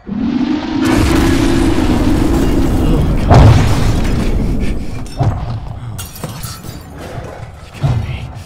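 Sound-designed invasion effects: a low, horn-like drone that rises slightly over a rumbling roar, then a heavy boom about three seconds in, with further thuds near five and eight seconds.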